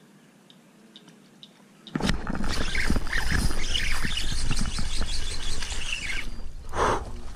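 A snakehead strikes a topwater frog lure with a splash near the end. Before that, a few faint ticks, then from about two seconds in a loud, steady rushing noise that stops suddenly shortly before the splash.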